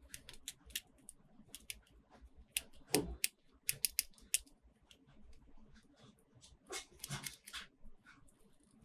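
Plastic toy parts and packaging being handled: a run of sharp clicks and crinkly snaps, with a heavier knock about three seconds in.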